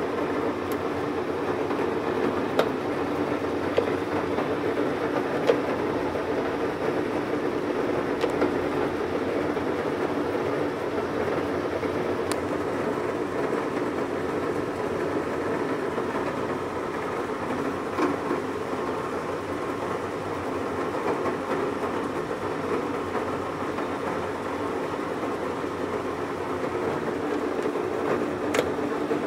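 Supermax G-2238 engine lathe running, a steady mechanical whir from its drive and gearing, with a few sharp clicks scattered through it.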